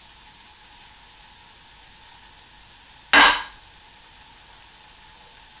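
Low steady hiss of food sizzling in a pan on the stove. A single short, sharp noisy burst comes about three seconds in.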